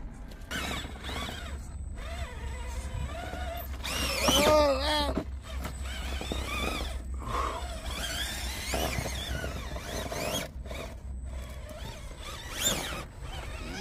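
RC rock crawler's electric motor and geared drivetrain whining as it climbs over rocks, the pitch rising and falling again and again as the throttle is worked, loudest about four seconds in. A few short knocks of the truck against the rock.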